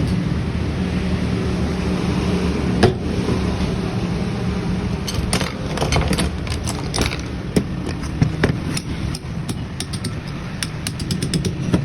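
Metal clicks and taps as a jammed refrigerator compressor is handled, over a steady low hum: one sharp knock about three seconds in, then a run of quick clicks from about five seconds on.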